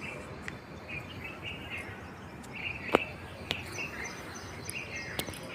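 Birds chirping in short repeated phrases over a steady background hiss, with a few sharp clicks, the loudest about three seconds in.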